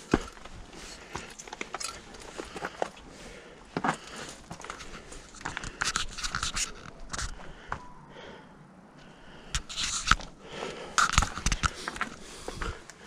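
Footsteps on a rocky, gravelly mountain trail: irregular crunching and scraping of shoes on loose stones and rock, with a short lull a little past the middle.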